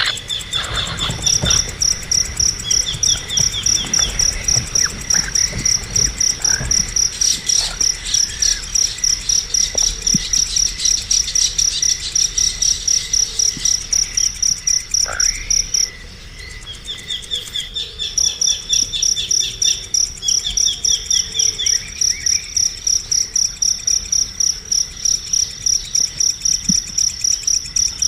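Insect chirping in a steady high pulse, two to three times a second, breaking off for about two seconds a little past the middle, with short trilled bird chirps now and then.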